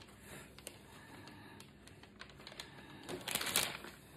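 Scattered light clicks and taps with soft rustling from gloved hands working paint along the edge of a canvas, with a louder rustle about three seconds in.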